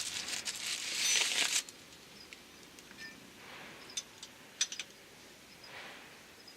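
Crinkling, rustling handling noise for about a second and a half, then a few light sharp clicks.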